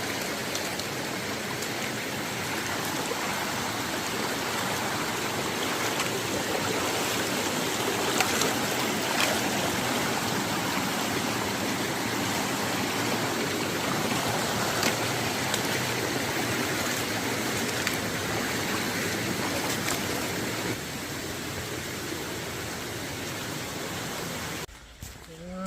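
Steady rush of running water from a forest stream. It cuts off abruptly near the end.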